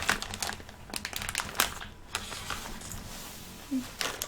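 Crinkling of a plastic snack packet of sweet chili peanuts, with irregular sharp clicks and taps as the packet is handled.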